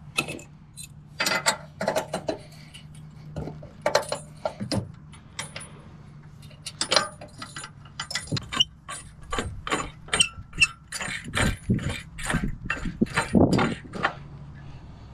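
Keys jangling and the metal clicking of the bike rack's hitch lock and receiver hardware being worked, ending in a fast, steady run of ratcheting clicks in the second half.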